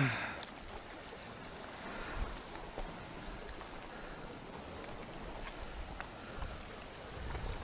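Calm sea washing and lapping against shore rocks in a steady low wash, with a few faint light knocks.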